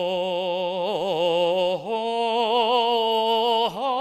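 A male singer holding long operatic notes with a wide vibrato. The pitch steps up to a higher sustained note about halfway through.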